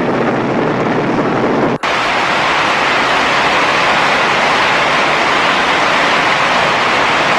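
Rushing floodwater: a loud, steady wash of noise with no distinct events. About two seconds in it cuts abruptly to a brighter, hissier rush from another shot.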